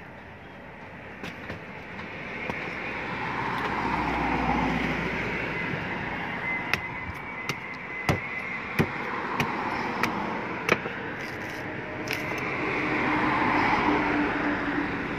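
A large knife chopping the husks of palmyra palm fruit against a wooden board: a run of sharp knocks in the middle, about eight of them at uneven intervals. Under it, passing vehicles swell and fade.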